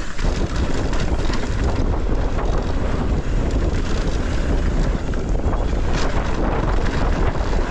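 Wind buffeting the microphone during a fast mountain-bike descent on a dirt trail, with a steady low rush and many short rattling clicks and knocks from the bike.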